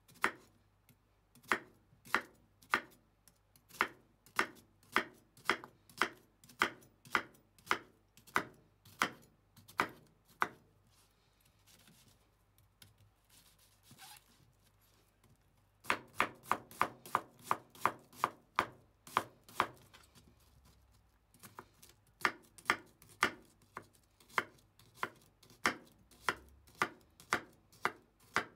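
Kitchen knife cutting an onion on a bamboo cutting board: a steady series of blade strikes on the board, about two a second. After a lull of a few seconds about halfway in comes a quicker run of chopping.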